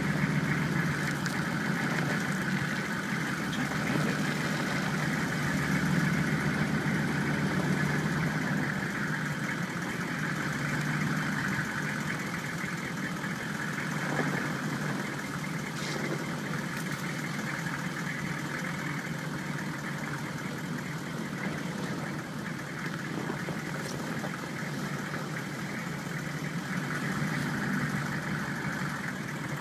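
Vehicle engine running steadily at low speed.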